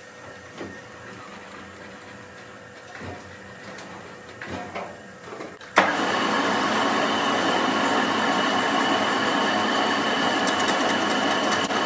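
Workshop metalworking noise: a few light metal knocks and clunks, then about halfway through a loud machine noise cuts in suddenly and runs steadily, with a thin high whine over it.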